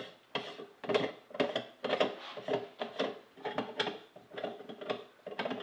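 Brass screw-on bezel of a marine chronometer being unscrewed by hand: a run of short rubbing scrapes of the threads and fingers on the metal, about two to three a second, one per turning stroke.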